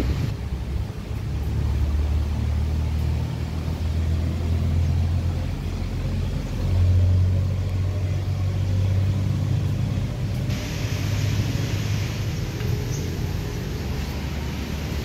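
Wind buffeting the microphone: a loud, uneven low rumble, with a steady hiss joining about ten seconds in.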